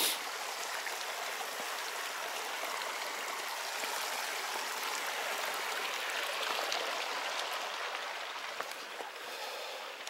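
Shallow mountain creek running steadily over granite rocks and stones, with a single short click at the very start.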